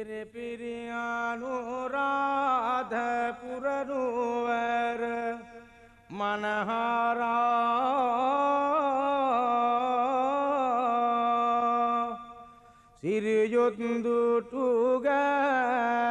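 A solo voice chants a slow, ornamented melody in three long held phrases, with brief pauses for breath between them.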